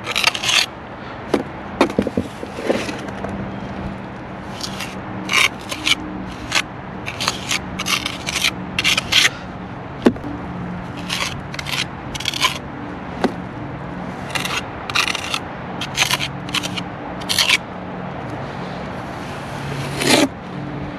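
Steel margin trowel scraping mortar into the joints of a stone veneer wall and scooping more from the mortar pan, in many short, irregular scraping strokes.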